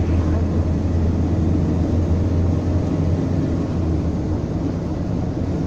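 Van cabin noise while driving: a steady low drone of engine and road noise, with no distinct knocks.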